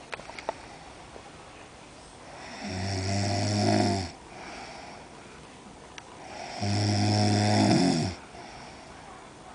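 A woman snoring in deep sleep: two long, low snores about four seconds apart, each followed by a softer breath.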